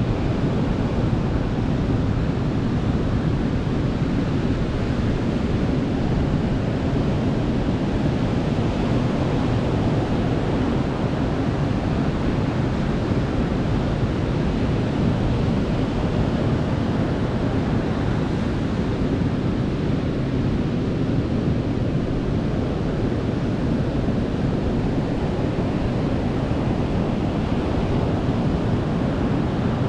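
Sea surf washing onto a beach, a steady rushing noise with a deep low rumble and no distinct breaks or crashes.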